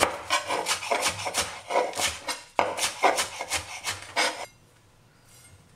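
Chef's knife chopping cilantro on a cutting board: a quick, steady run of chops, about three to four a second, stopping about four and a half seconds in.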